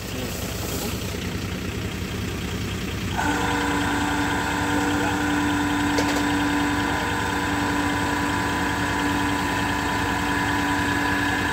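An engine running steadily. About three seconds in, a steady whine of several tones joins it and the sound grows a little louder. There is a single click about six seconds in.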